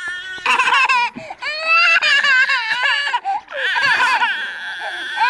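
Two toddlers crying in high, wavering wails, in three long bouts with short breaths between them.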